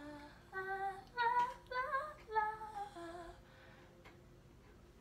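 A young woman singing a short melody unaccompanied in a few held notes, stopping about three seconds in.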